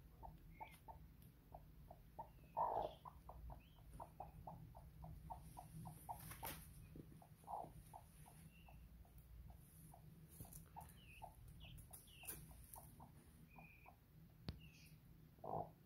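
Newly hatched peachicks peeping faintly: a quick, regular run of short peeps, about three a second, with a few higher chirps now and then.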